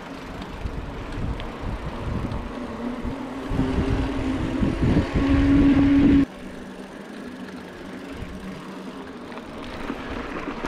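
Giant Stance 2 29er mountain bike riding over a rough trail: a rumble with many small knocks and wind on the microphone, plus a hum that grows louder and rises slightly in pitch. The sound cuts off abruptly about six seconds in, and a quieter, steadier rolling noise follows.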